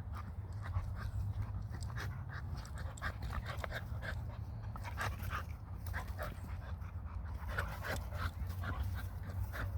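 A dog panting in quick, repeated breaths over a steady low hum.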